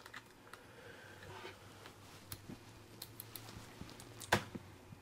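Quiet room tone with a low hum and a few faint scattered clicks, and one sharper click about four seconds in.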